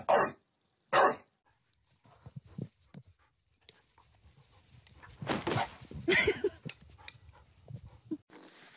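Bulldog barking, two short loud barks about a second apart. A few seconds later comes a louder stretch of noisy, unclear sounds.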